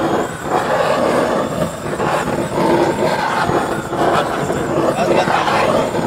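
Handheld gas blowtorch running, its flame playing over grated cheese to melt and brown it: a continuous noisy roar that wavers in level, with street noise mixed in.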